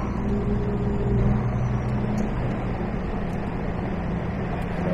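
Lorry's diesel engine and road noise heard from inside the cab while driving: a steady low drone whose note drops a little about two seconds in.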